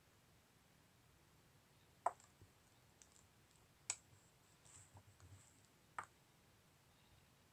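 Clicks from someone working a computer while a web page list is scrolled: three sharp single clicks about two seconds apart, with a few softer ticks and a brief faint rustle between them, over near silence.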